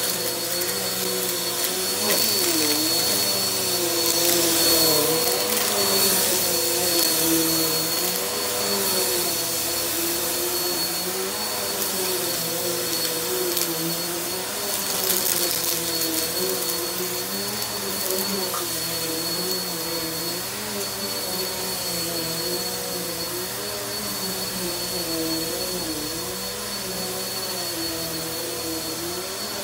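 Bissell bagless upright vacuum running on carpet, a steady high whine over the rush of air. Its motor pitch wavers up and down as it is pushed back and forth.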